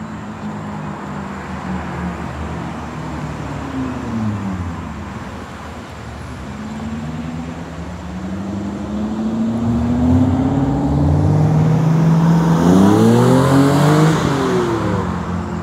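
Cars accelerating and passing through an intersection. The engine pitch falls once, then climbs steadily as a car pulls away, and the loudest pass comes near the end.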